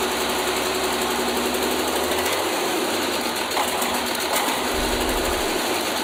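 Praga V3S's air-cooled inline-six diesel engine running on a stand, with a steady, fast clatter.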